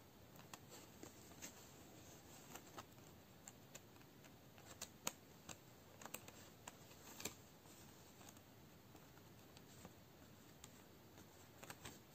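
Near silence with faint, scattered light clicks and ticks, as of a needle and thread being worked through cross-stitch fabric.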